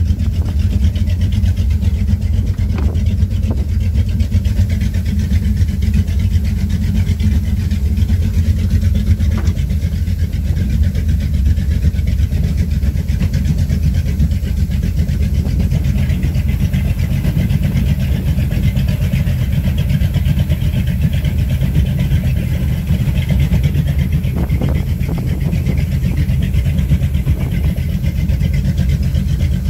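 Baja 272 powerboat's engine idling steadily with a low, even sound, with a few faint knocks over it.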